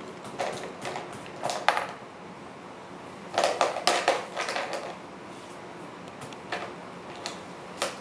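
Plastic-capped markers clicking and clattering against a plastic booster-seat tray as a baby handles them: a run of rapid taps in the first couple of seconds, a louder run a little past the middle, then a few single clicks.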